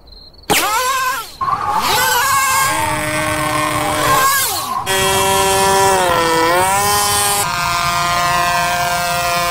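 Cartoon sound effect of a mosquito taking off and flying fast, voiced as a revving motor vehicle engine. It starts suddenly about half a second in, then runs as a steady engine drone that jumps in pitch a few times, like gear changes, and dips briefly near the middle.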